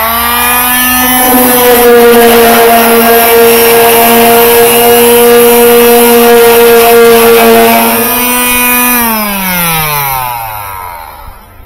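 Electric palm sander running against the painted steel top of a washer cabinet, sanding off rust and loose paint. It runs at a steady pitch, then is switched off about nine seconds in and winds down with a falling pitch until it stops near the end.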